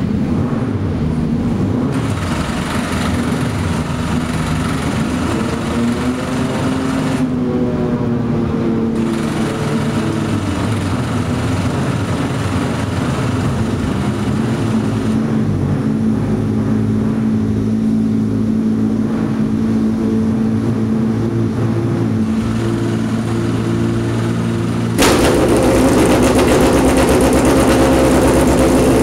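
Nissan 350Z Super GT GT500 race car engine running at idle, its pitch wavering and briefly rising. About twenty-five seconds in it steps up suddenly, louder and harsher.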